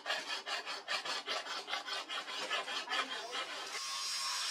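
Hand file rasping along the edge of a steel machete blade in quick, even back-and-forth strokes. Near the end the filing gives way to the steady sound of an angle grinder on the steel.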